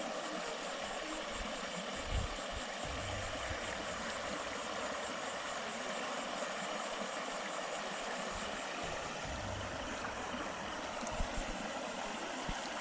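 Steady rush of a shallow freshwater stream flowing over rocks, with a few soft low bumps.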